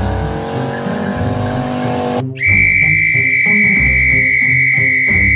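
Cartoon vehicle engine sound effect revving up for about two seconds, then a long, steady, high-pitched whistle blast held to the end, over background music.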